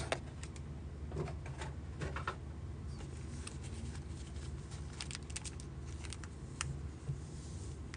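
Faint scattered clicks and soft rustles of hands handling a trading-card box's foam insert and a plastic-wrapped pack of cards, over a steady low hum.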